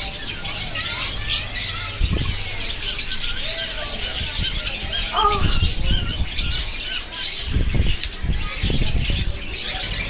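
Many caged birds chirping and squawking together, with a few short bursts of wing flapping about two, five and eight seconds in.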